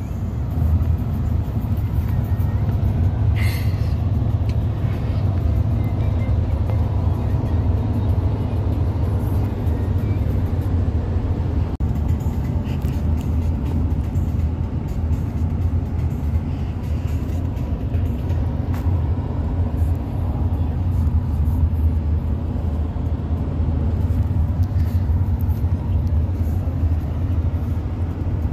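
Steady low rumble of a passenger van driving on the road, heard from inside the cabin: engine and tyre noise.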